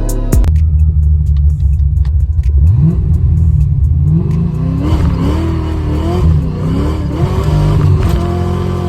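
Foxbody Ford Mustang's engine under way on the road, accelerating, its pitch climbing and then rising and falling repeatedly as the throttle changes.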